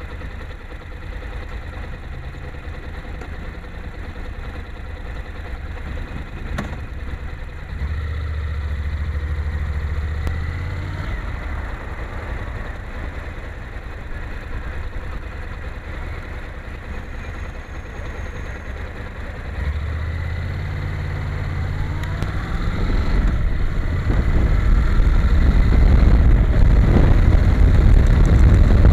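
Honda NC700X's parallel-twin engine idling, then pulling away about eight seconds in and picking up speed again from about twenty seconds. Wind noise grows louder toward the end.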